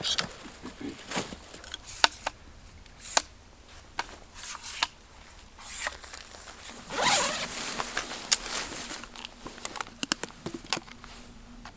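Photo gear being handled: sharp clicks and snaps of a tripod being set up, a camera backpack's zipper pulled open about seven seconds in, the loudest sound, then more light clicks as gear is taken out of the bag.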